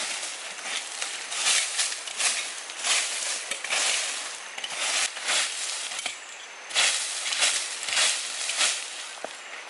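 Dry leaves and twigs crackling and rustling in irregular crunches, a few a second, with a short lull about six seconds in.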